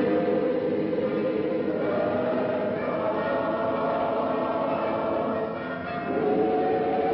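A choir singing slow, held chords, moving to a new chord about two seconds in and again about six seconds in. The recording sounds dull, with no high treble, as on an old film soundtrack.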